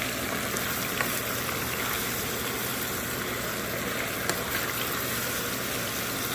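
Seasonings sautéing in a pot, a steady sizzle with a couple of light clicks.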